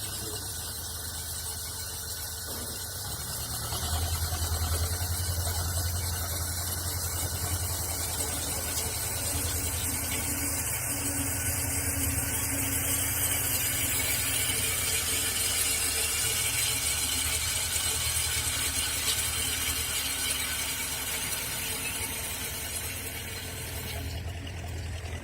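Electric Krot cultivator, its motor driven through a frequency converter, running steadily while tilling soil with a low hum. The sound grows a little louder a few seconds in and its upper part drops away near the end.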